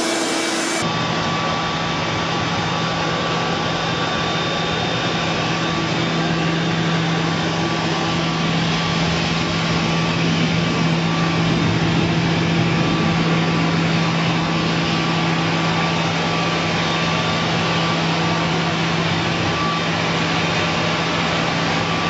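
RIDGID HD1400 14-gallon wet/dry shop vac running in blower mode: its motor runs steadily, with a steady hum under a strong rush of air, and no change in speed.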